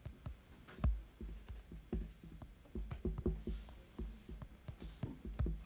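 Stylus tapping and scraping on an iPad screen during handwriting: a string of irregular soft taps and low thumps.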